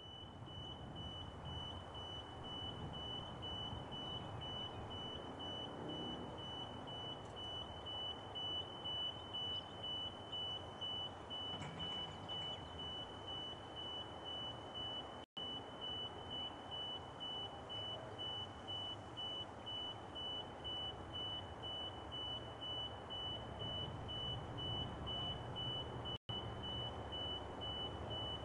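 Electronic railway level-crossing warning bell beeping: a single high-pitched tone pulsing rapidly and steadily, over a low rumble.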